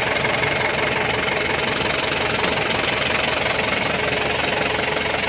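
Kubota M9540 tractor's diesel engine idling steadily.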